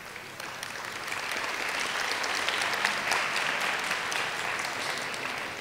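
Audience applauding, building over the first couple of seconds and then slowly dying away.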